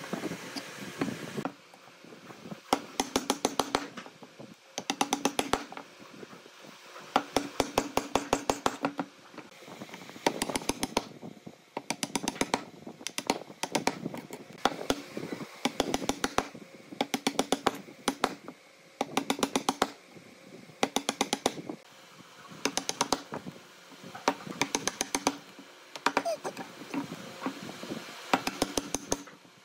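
Wooden mallet striking a steel chisel, chopping a mortise in a hardwood beam: quick runs of light blows, several a second, with a short pause between runs every two seconds or so.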